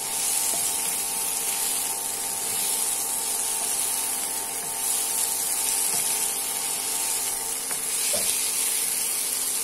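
Pointed gourd pieces sizzling in hot oil while a wooden spatula stirs and scrapes them around a nonstick wok. A steady hum runs underneath and stops near the end.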